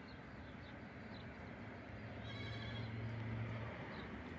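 Bichon Frise puppy whining, one high-pitched cry lasting about a second and a half just past the middle, with faint short cries before it, over a low steady hum.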